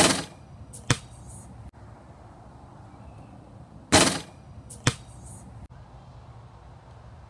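A basketball striking the rim and backboard of a portable hoop with a short ringing clang, then a sharp bounce on the paver patio just under a second later. This happens twice, about four seconds apart.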